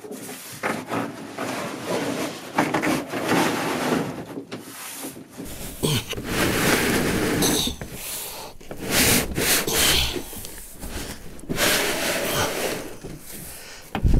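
Large cardboard shipping carton being opened by hand: flaps pulled up and folded back, cardboard scraping and rubbing in irregular bursts, with a sharp knock near the end.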